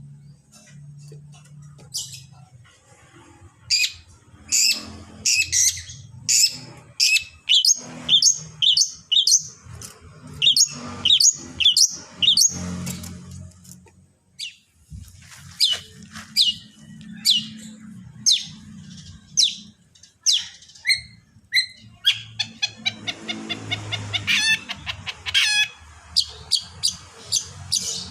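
Long-tailed shrike (cendet) singing a full, varied song of short, sharp chirps and whistles, mixing in mimicked calls, with a fast buzzy trill near the end.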